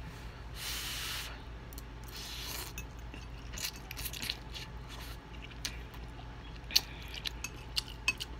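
A person slurping ramen noodles off a fork, two slurps in the first few seconds, then chewing with wet lip smacks and small clicks.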